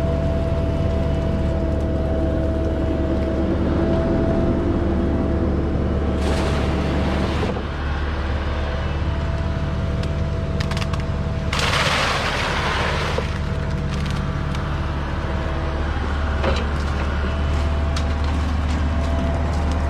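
Heavy diesel equipment running steadily, with a constant whine over the engine. There is a short hiss about twelve seconds in.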